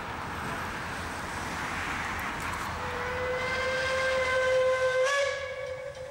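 Steam whistle of the Puffing Billy Railway's Climax geared steam locomotive sounding one long blast about three seconds in, with a slight step up in pitch near the end. Before it, a steady hiss.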